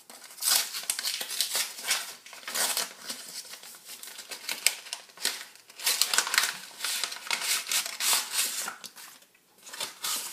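A paper envelope being opened by hand and the letter inside handled: irregular rustling and crinkling of paper in quick bursts.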